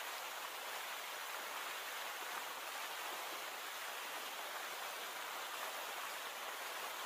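Steady hiss of heavy rain falling, even and unbroken.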